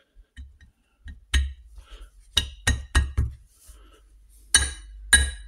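A series of sharp metallic clinks, some with a short ring, as a freezer-chilled ball bearing is worked into its heated housing in a Norton Commando's aluminium inner gearbox casing and drops home. The clinks come more often near the end.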